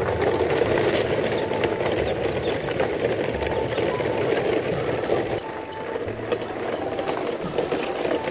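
Plastic wheels of a long chain of toy trucks rolling over dirt and dry leaves, a steady rattling rumble that dips briefly past the middle.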